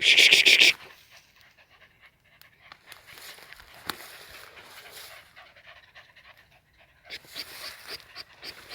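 Dog panting hard in quick, short breaths, loudest in the first second and starting again near the end.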